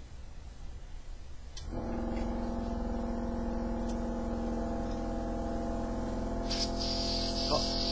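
A steady motor hum starts about two seconds in. About six and a half seconds in, a hissing blast of air starts and blows dust out through the car radio part.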